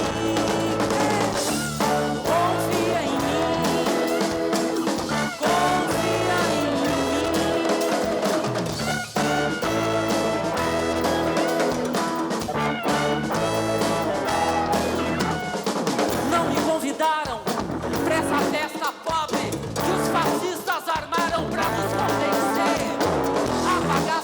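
Live band music.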